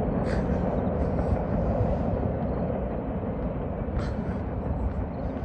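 Freight train rolling past, a steady low rumble of its cars on the rails with a couple of sharp clicks; the horn is not sounding.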